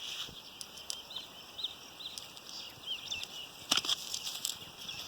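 Small birds chirping: short, high, repeated chirps every half second or so, with a few sharp clicks a little before the end.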